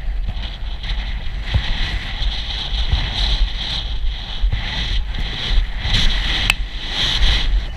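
Wind buffeting a head-mounted camera's microphone as the rider gallops on horseback, with the horse's hoofbeats thudding irregularly underneath.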